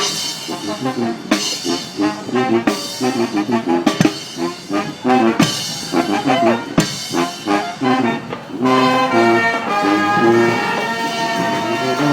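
Brass band playing live, horns over a steady drumbeat. About two-thirds of the way through, the horns shift to longer held notes.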